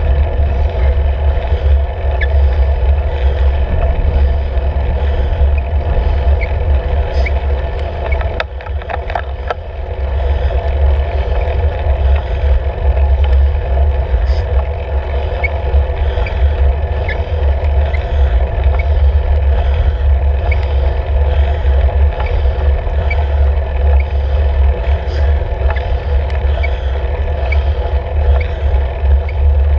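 Steady wind rumble on the microphone of a bicycle-mounted camera, with road noise from a road bike rolling on asphalt. It dips briefly about nine seconds in.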